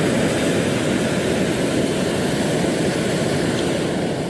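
Hot air balloon's propane burner firing in one loud, steady blast of about four seconds that starts and cuts off abruptly.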